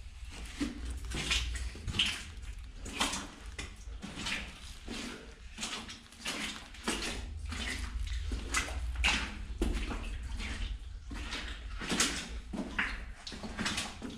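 Footsteps on the rough floor of a disused mine tunnel, an irregular series of about one to two steps a second, echoing in the enclosed adit.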